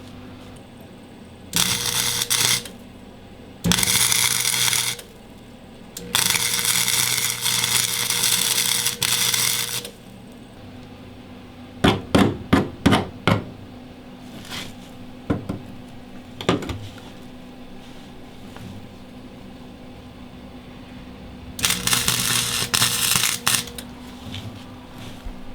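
Wire-feed welder arc crackling in four bursts of one to four seconds as it runs short beads on 16-gauge steel patch plates. Between the bursts, about halfway through, there is a quick run of sharp metal knocks.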